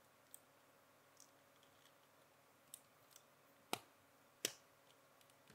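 Plastic parts of an Iron Spider-Man model kit clicking as they are handled and pressed together: a few light clicks, then two sharper snaps about three and a half and four and a half seconds in.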